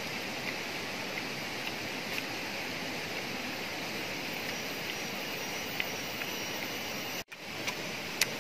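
Steady rushing of flowing stream water, with a few faint small clicks. The sound cuts out briefly about seven seconds in, then resumes.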